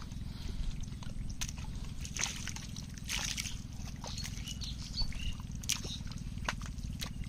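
Hands squelching and sloshing through shallow mud and muddy water while groping for fish. There are scattered wet smacks and splashes over a steady low rumble.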